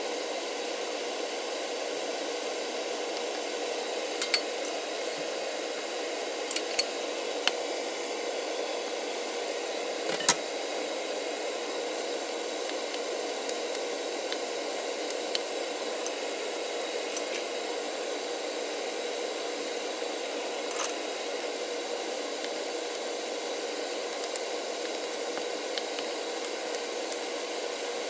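A wooden spatula clicks and knocks now and then against a frying pan as a stir-fry is tossed and stirred, over a steady whooshing noise with a constant low hum.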